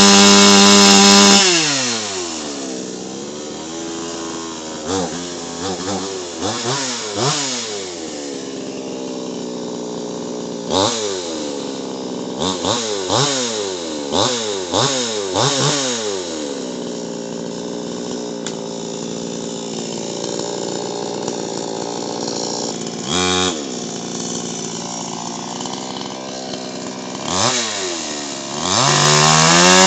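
Hoyoma 22-inch two-stroke gasoline chainsaw: at full throttle, dropping to idle about a second and a half in, then revved up and down in a string of quick throttle blips. It settles to a steady idle with one short rev, and near the end climbs back to full throttle.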